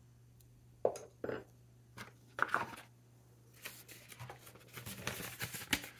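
Paper packaging being handled: a soft rustling and crinkling that grows busier over the last two seconds, after a few brief quiet sounds of items being moved on the desk.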